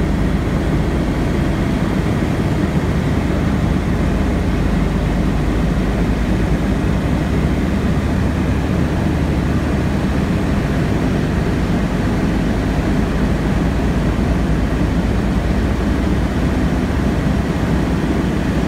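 Four Wright R-1820 Cyclone nine-cylinder radial engines of a Boeing B-17G Flying Fortress droning steadily in flight, heard from inside the cockpit as a loud, low, unchanging drone.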